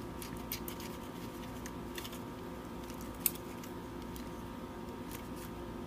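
Scattered light clicks and taps of a small nut and a tool on a potentiometer's threaded bushing as the nut is fitted and tightened on a circuit board, one louder click about three seconds in. A steady hum runs underneath.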